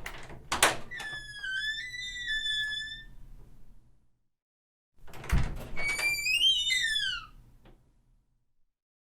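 Two doors being opened one after the other. The first opens with a sharp click and then a long, wavering hinge creak. The second opens with a low thud and then a creak that rises and slides back down.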